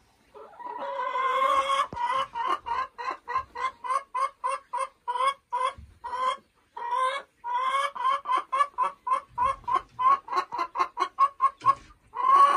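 Boris Brown hen clucking: a long drawn-out call about half a second in, then a fast run of short clucks, about three to four a second, a second long call around seven seconds in, and more rapid clucks to the end.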